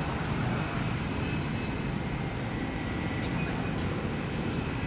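Steady rumble of road traffic, with no single distinct event.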